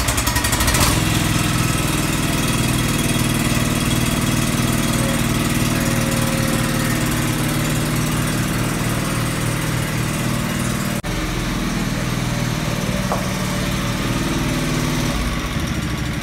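John Deere 445 lawn tractor's liquid-cooled Kawasaki V-twin engine running steadily at a fast idle, just after its first start-up following reassembly, with a momentary break about eleven seconds in.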